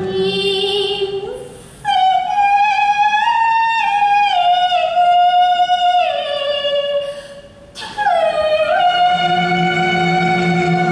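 Cantonese opera singing: a high voice holding long notes that glide and step in pitch, over instrumental accompaniment. It comes in two phrases, with a brief lull about seven seconds in.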